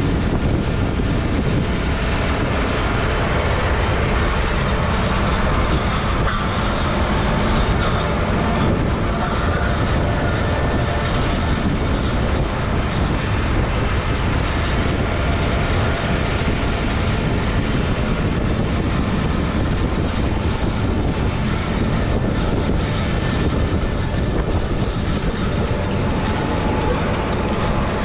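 A heavy vehicle running steadily: dense, unchanging engine and travel noise.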